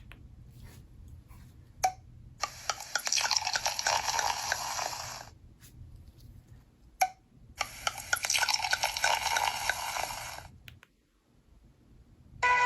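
Sound-effect ringtone played on a Nokia N71's speaker: a short blip, then about three seconds of crackling noise, the pattern played twice.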